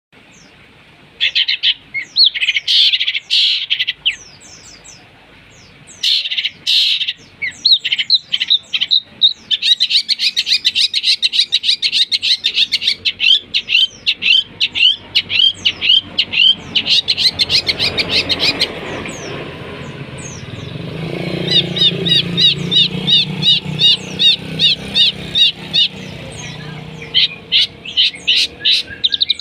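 Long-tailed shrike (cendet) singing a mimicry song of fighting house sparrows and lovebird: fast runs of sharp, high chirps in bursts broken by short pauses, with a lower rough chatter under the chirps through the middle.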